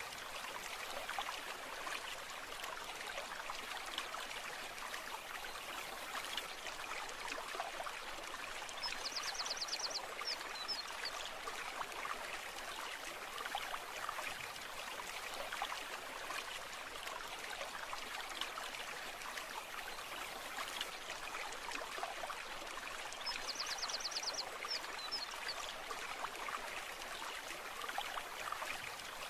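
A stream running over stones, a steady babbling and trickling of water. A short, rapid high-pitched trill cuts in twice, about fifteen seconds apart.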